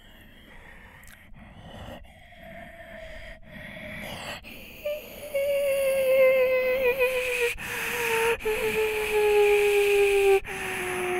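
A man's voice imitating a Tokyu 2020 series train pulling into a station: a hiss that swells louder, then a hummed motor whine sliding slowly down in pitch as the train brakes, with a few brief breaks.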